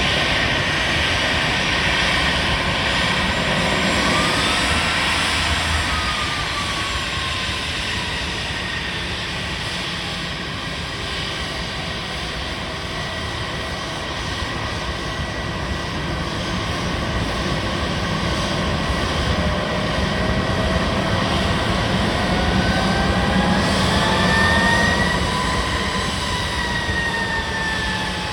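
Airbus A320 jet engines running: a steady rush with a thin whine that rises and then falls in pitch, twice over. The sound swells to its loudest near the end.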